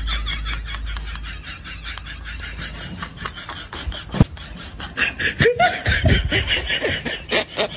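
Snickering laughter: quick giggles repeating several times a second, with a single sharp thump about four seconds in.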